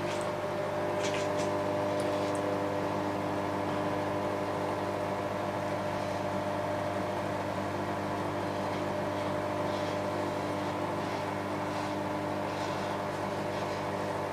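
Microwave oven running at full power, a steady hum, heating a bowl of water and lemon juice. A few faint ticks come in the first couple of seconds.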